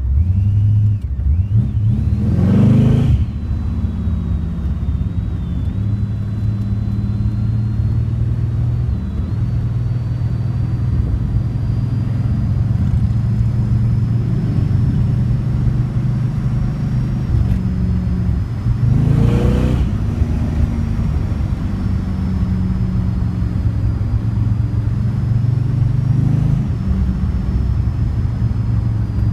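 Corvette Stingray's 468 cubic-inch big-block V8 running under way with a steady low drone, the engine note rising sharply as it accelerates about two and a half seconds in and again at about twenty seconds.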